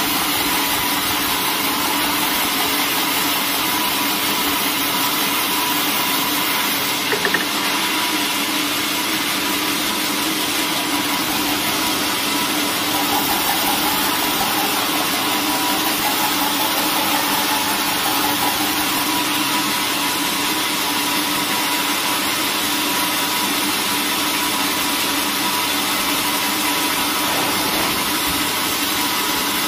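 Band sawmill blade ripping lengthwise through a squared timber: a steady machine whine with the hiss of sawing. A short knock about seven seconds in.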